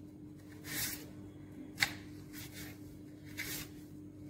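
Knife slicing peeled raw turmeric root on a wooden cutting board: soft, faint cuts, with one sharper tap of the blade on the board a little under two seconds in.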